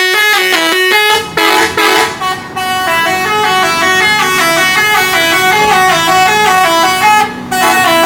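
Indonesian intercity bus 'telolet' musical air horns playing quick stepping tunes of pitched notes. They break off briefly about a second in, around two seconds in and near the end, and from about three seconds in more than one line of notes sounds at once.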